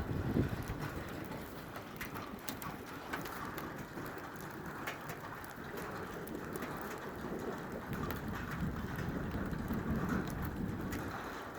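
Steady rain falling, with scattered drops ticking sharply close by. A low rumble of distant thunder swells and fades in the second half.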